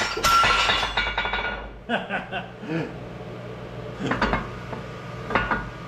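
A steel forming die in a hydraulic press letting go under about 20 tons as the stainless sheet punches through: one sharp metallic bang with a ringing that fades over about a second and a half. It is followed by a few light clinks as the steel die pieces are handled.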